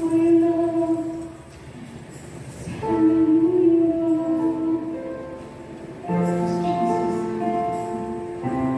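Women singing a praise-and-worship song into microphones over a backing track, in three phrases of long held notes with short breaks between them.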